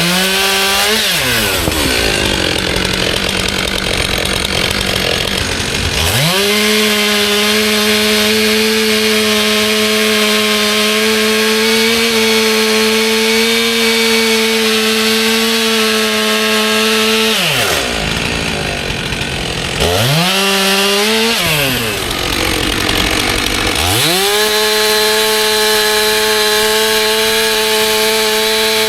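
Stihl MS400 two-stroke chainsaw running at high revs and cutting logs. Its engine note sags about a second in, climbs back after about six seconds and holds steady, sags twice more past the halfway point, then climbs and holds again.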